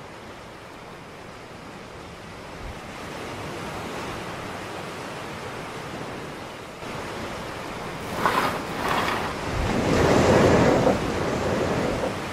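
Ocean waves washing in a steady rush that slowly grows, with louder surges of surf breaking about eight to eleven seconds in.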